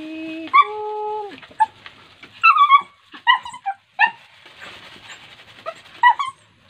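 Dog whining: two long, steady held notes in the first second and a half, followed by short, high yelps and whimpers every second or so.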